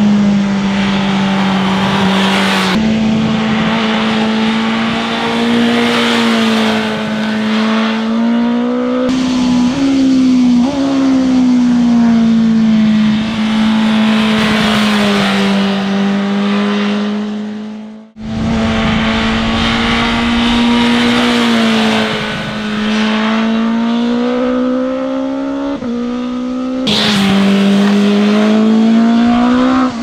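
BMW S1000RR's inline-four engine revving hard, its pitch repeatedly climbing under acceleration and dropping as the throttle closes and gears change. The sound jumps abruptly about 3, 9, 18 and 27 seconds in, with a momentary dropout at the 18-second cut.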